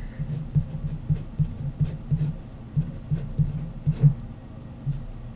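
A pen writing numbers on paper laid on a hard surface: irregular dull taps and knocks as the strokes land, about two a second, with faint scratchy clicks.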